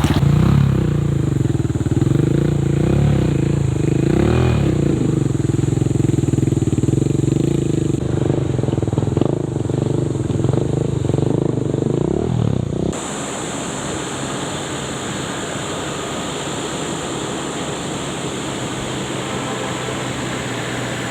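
Land Rover Defender's engine working off-road, its pitch rising and falling as it is revved up and down. About thirteen seconds in, the sound cuts abruptly to a steadier, even rush of driving noise.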